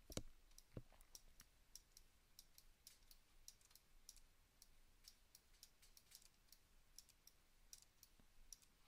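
Faint, irregular clicking of a computer mouse, about two or three clicks a second, over near-silent room tone.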